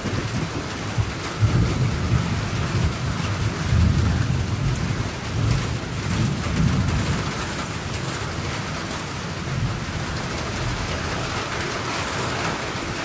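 Steady rain falling, with thunder rumbling low underneath. The thunder swells three times in the first half and then eases off.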